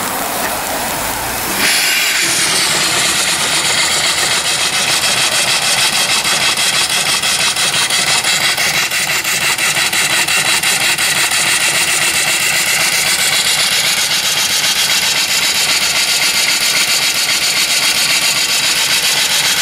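Vertical single-cylinder steam engine with a 3-inch bore and 4-inch stroke running on steam from a boiler. A softer hiss of steam at first; about two seconds in it comes up to speed and the exhaust blasts from its open exhaust pipe as a loud hissing chuff with a rapid, even beat.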